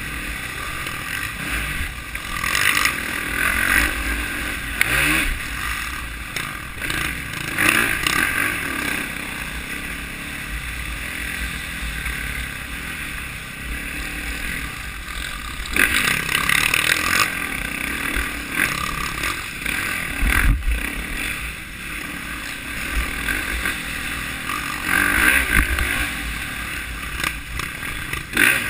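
Dirt bike engine running at speed, revving up and falling back again and again, with wind rumbling on the microphone.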